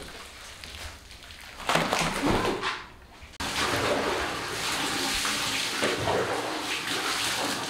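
Water running steadily, starting abruptly about three and a half seconds in after a quieter opening.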